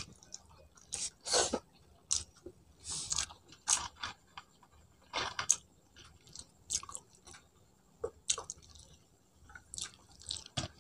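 A person chewing a mouthful of food close to the microphone, in irregular short bursts with pauses between.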